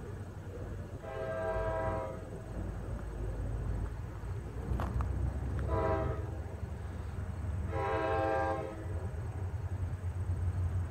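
An approaching diesel locomotive's air horn sounds for a grade crossing: a long blast, a short one, then another long one, each a multi-note chord, over a steady low rumble of the oncoming train.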